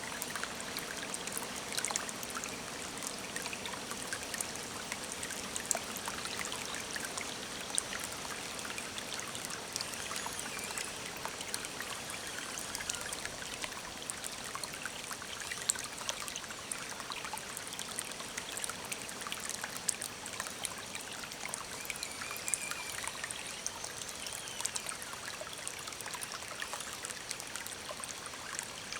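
A forest stream trickling and babbling steadily over stones, with birds chirping now and then in the background.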